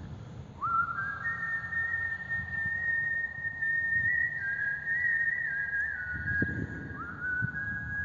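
Music of high, whistle-like held notes, several sounding at once, each sliding up into pitch and then held for seconds. A low, uneven rumble of road noise runs underneath and swells near the end.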